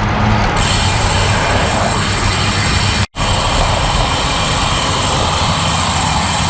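Steady rush of wind over a bike-mounted action camera's microphone, with road and traffic noise, while riding a road bike. The sound cuts out completely for a split second about three seconds in.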